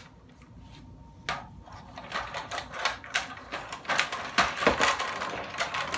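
Gemmy animated caged skeleton prop running, its plastic bones and chains rattling in rapid, irregular clicks. The rattling starts about a second in and grows busier and louder.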